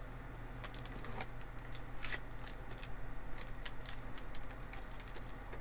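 A plastic-and-foil blister pack of pills being handled and pressed open, giving a run of small crinkles and clicks at irregular intervals.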